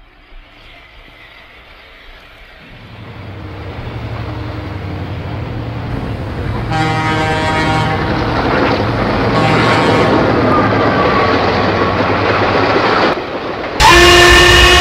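Steam locomotive approaching, its running noise growing steadily louder, with two whistle blasts about seven and nine and a half seconds in. Near the end a sudden, loud, several-note chime whistle sounds as it comes close.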